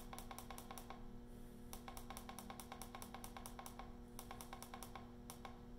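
Rapid run of light clicks, several a second with a couple of short pauses, from the Isochain strength-testing device's buttons being pressed repeatedly to set the 80-pound load target. A faint steady hum runs underneath.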